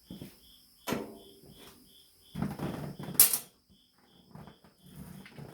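Metal clinks and rattles of hand tools and a loose nut being handled: a sharp knock about a second in, then a louder clatter near the three-second mark. Crickets chirp steadily behind it in a fast, even pulse.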